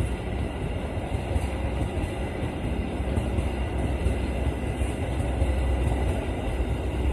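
Argo Jati express train's passenger coaches rolling past, a steady noise of steel wheels running on the rails.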